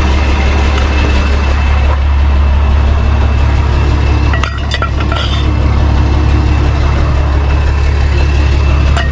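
Tow truck's diesel engine idling steadily with a low drone and a faint constant whine, with a few light metallic clinks about halfway through and again near the end.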